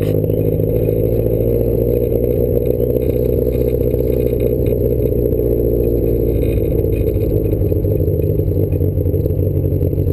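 Triumph sports car's engine running steadily at low revs, heard from inside the cabin.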